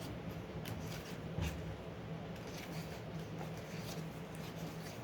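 Paper rustling as the pages of an album photo book are turned quickly, several soft swishes and ticks over a low steady hum.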